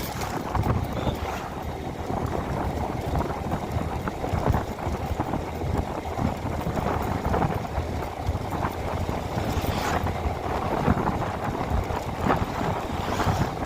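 Steady vehicle and road rumble with wind buffeting the microphone.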